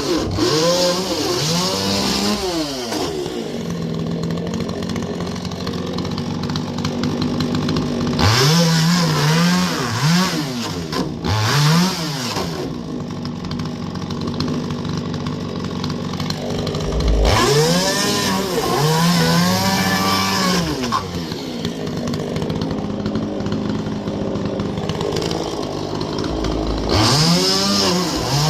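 Two-stroke chainsaw revved up in bursts about four times, the pitch rising and dropping with each, settling back to a steady idle in between.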